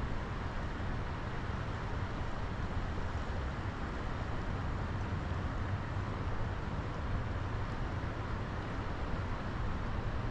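Steady rush of a flowing creek, with a steady low rumble beneath it.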